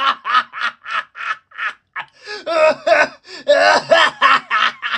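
A man laughing hard in a long fit of rapid "ha-ha-ha" bursts, about four a second, with a brief break for breath about two seconds in.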